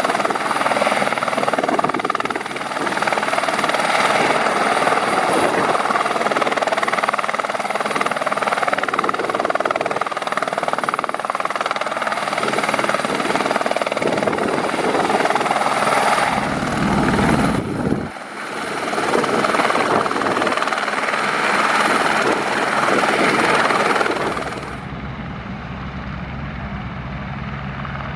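Airbus H125M helicopter's turboshaft engine and rotors running loud and steady, with the turbine whine and blade noise of a running helicopter. Near the end the sound drops suddenly to a quieter, duller hum.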